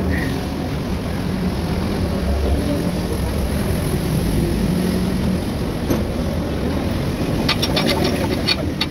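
Steady low vehicle rumble, with a quick run of light sharp clicks near the end.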